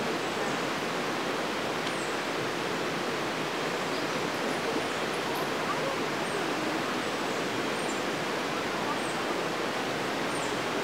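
Steady rushing of a shallow, rocky river flowing over stones.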